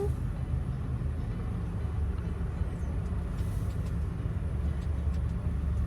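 Car running at low speed, a steady low engine and road rumble.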